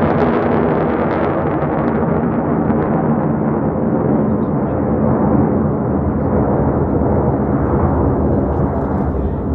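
Blue Angels F/A-18 Super Hornet jets passing overhead: a loud, steady jet rumble whose higher tones slowly fade as the jets move away, easing a little near the end.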